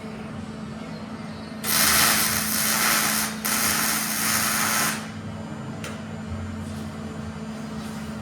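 A shop power tool running in two bursts of loud, even hissing noise, about a second and a half each with a brief break between, over a steady low hum.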